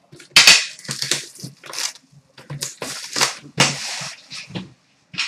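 Packaging of a sealed trading card box being torn and crinkled open by hand: irregular rustling and ripping, loudest about half a second in and again past three seconds.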